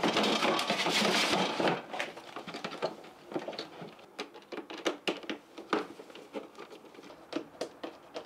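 Hands handling and fitting parts of a small kitchen appliance: a loud scraping rustle for the first second and a half or so, then scattered light clicks and knocks.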